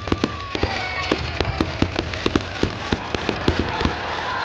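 Fireworks and firecrackers going off: an irregular string of sharp bangs and pops, several a second, over a steady crackling haze.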